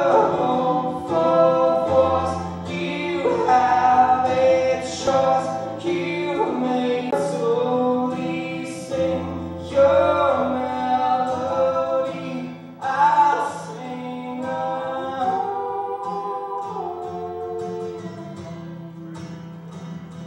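Several voices singing together in harmony over sustained low accompanying notes, growing gradually quieter over the last several seconds.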